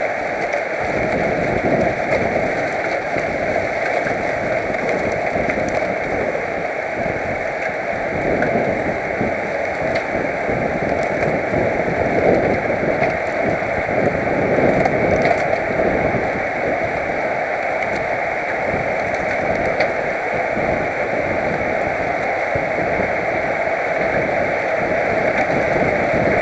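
Wind rushing over a helmet-mounted camera's microphone while riding a road bike at speed: a steady rushing hiss with uneven low buffeting.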